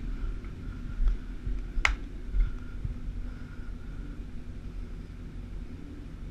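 Handling noise and a low rumble from a body-worn camera as hands rummage through clothes and a backpack, with a few dull thumps and one sharp click about two seconds in.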